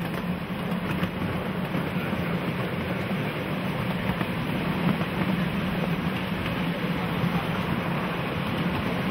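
Ride-on miniature garden railway train rolling along its track, a steady noise of wheels on rails with a few light clicks.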